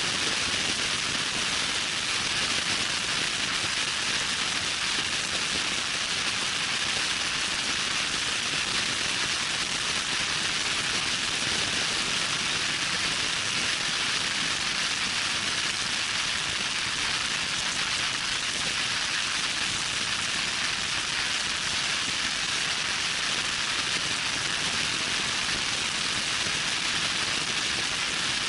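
Loud, steady wind noise on the microphone of a vehicle driving at speed on a dirt road: an even hiss with no engine note standing out.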